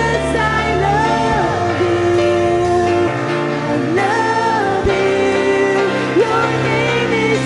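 Worship song: a singer holding long, gliding notes over a band with guitar.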